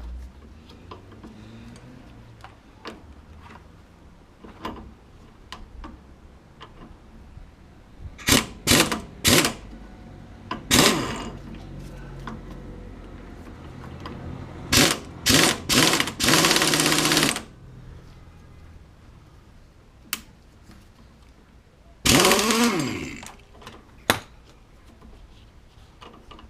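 Impact gun hammering in a series of short trigger bursts and a few longer runs, spinning nuts down new wheel studs to draw them into the hub. One longer run near the end falls in pitch as the gun winds down.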